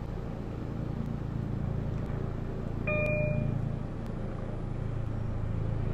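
Steady low hum of a stopped Long Island Rail Road diesel train, its EMD DM30AC locomotives idling at the platform. About three seconds in comes one short electronic beep.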